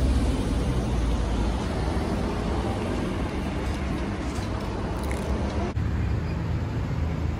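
Steady city street traffic noise, with a low vehicle rumble that eases off about one and a half seconds in.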